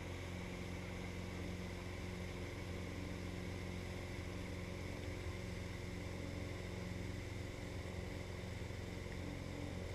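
Motorboat engine running steadily at towing speed, a low even drone with the hiss of the churning wake behind the boat.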